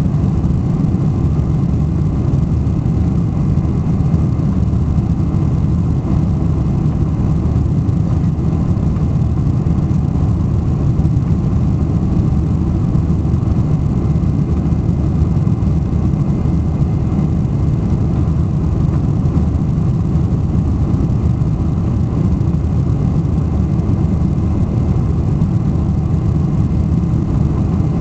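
Steady jet-engine and rushing airflow noise heard inside the cabin of a Boeing airliner climbing out after takeoff, loud and low-pitched.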